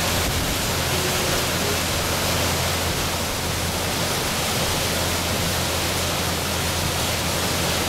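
Tour boat under way: a steady rushing noise of wind and churned water over a low, steady engine drone.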